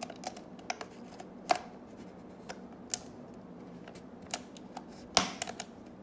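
Scattered sharp clicks and crackles of a clear plastic blister bubble being cut and pried from its cardboard backing card with a pointed hobby blade, to open an action figure's package while keeping the card intact. The loudest cluster of clicks comes about five seconds in.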